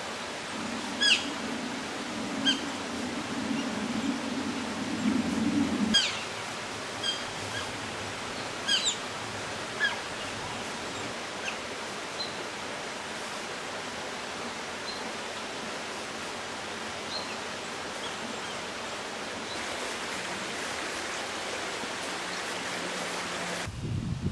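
A steady rushing hiss like running water, with short, sharp, high chirps scattered through the first ten seconds and a few fainter ones after.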